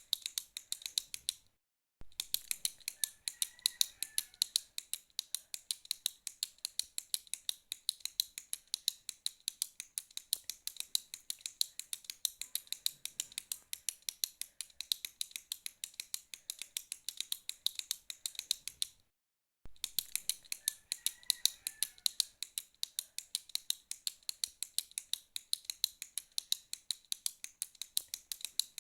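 A retractable pen being clicked over and over in a fast, even rhythm of several clicks a second. The clicking stops dead twice for about half a second, once near the start and once about two-thirds of the way through.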